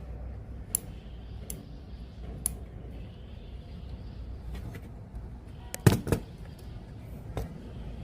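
Scattered sharp clicks and knocks over a steady low hum, with a louder clatter of several knocks about six seconds in.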